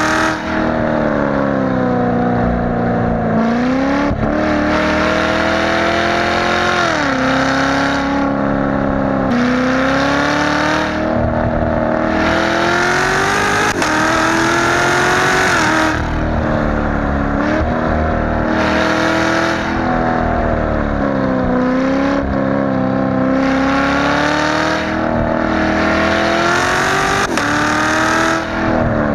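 Chevrolet C7 Corvette Z06's supercharged 6.2-litre LT4 V8 running through an X-pipe exhaust at highway speed. Its engine note climbs and falls repeatedly, with several sudden drops in pitch, and a harsher roar comes and goes with the throttle.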